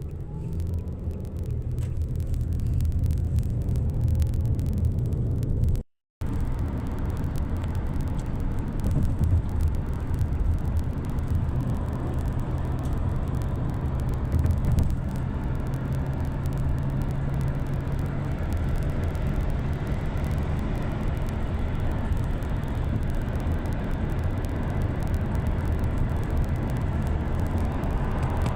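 Steady low rumble of a road vehicle running, with a brief dropout about six seconds in.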